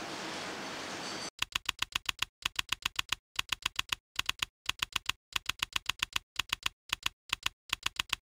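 A steady hiss for about the first second, then a typing sound effect: rapid key clicks in short runs with brief pauses between them, as if typed out word by word.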